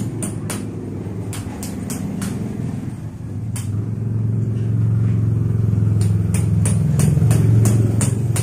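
Hammer striking a metal tool set in a hole in a concrete floor: sharp, irregular metallic taps in two spells, a handful in the first couple of seconds and another quick run near the end. A steady low drone runs underneath and grows louder about halfway through.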